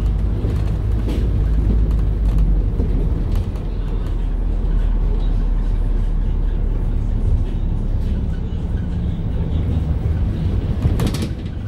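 Volvo B5LH diesel-electric hybrid double-decker bus driving, heard from inside on the upper deck: a steady low drone from the drivetrain and road, with light rattles and a short louder clatter about eleven seconds in.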